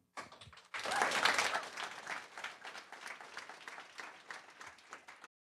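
Audience applauding at the end of a talk: a few scattered claps, then full applause from just under a second in that peaks quickly, slowly thins out and is cut off suddenly near the end.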